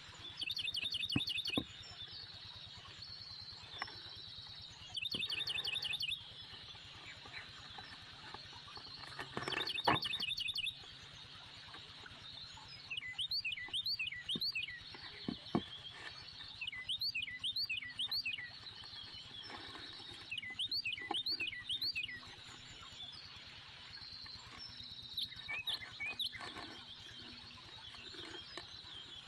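Small birds calling: three quick trills of about a second each, then clusters of short sharp chirps repeating through the rest, over a faint steady high hum.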